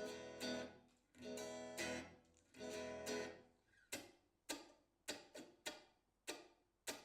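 Electric guitar played through an amplifier: three strummed chords, each ringing for about a second, then a run of short, quickly damped strums about two a second.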